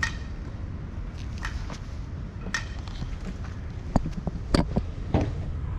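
Steady low outdoor rumble with three short sharp knocks about four to five seconds in.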